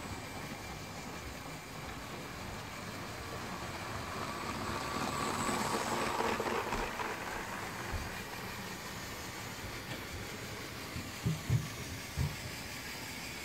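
Motorised Lego train running on plastic track, its motor and wheels growing louder about five seconds in and then fading. A few short low bumps near the end.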